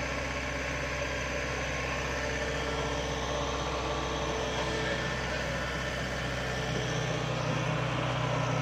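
Heavy diesel engine running steadily at low revs, a deep even hum that swells slightly in its low notes near the end.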